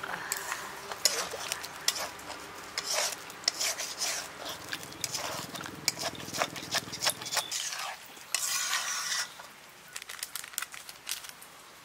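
A wooden spatula stirring thick duck curry in a metal kadai, scraping and knocking against the pan in quick irregular clicks, with the meat sizzling.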